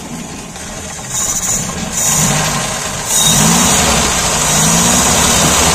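Premier Padmini's four-cylinder petrol engine running with its air cleaner off, the throttle blipped by hand at the freshly rebuilt Solex carburettor so the revs rise and fall several times, over a loud steady hiss. It gets louder about a second in and again about three seconds in.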